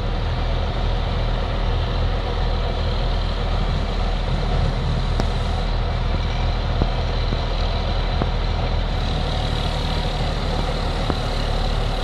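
Heavy diesel engine running at a steady speed, a low even drone with no revving.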